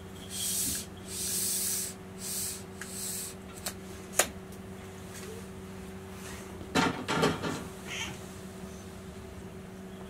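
A domestic cat meows once, briefly, about seven seconds in. Before it come a few soft hissy rustles and a sharp click about four seconds in, all over a steady low hum.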